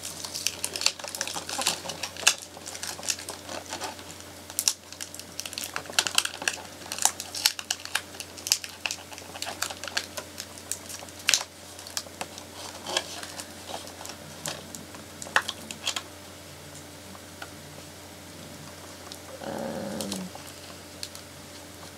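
Doll-box packaging being handled: cardboard and plastic crinkling with a quick, irregular run of sharp clicks and ticks as the doll is worked loose from the ties holding it to the box. The clicking thins out and stops about three-quarters of the way through.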